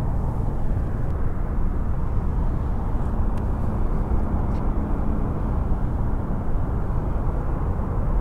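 Steady low rumble of wind noise buffeting the microphone, even throughout with no distinct events.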